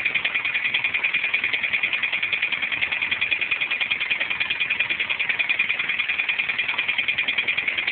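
Honda Civic engine running with a rapid, even knock, a loud "dat-dat-dat" many times a second: rod knock from a badly spun bearing on cylinder one.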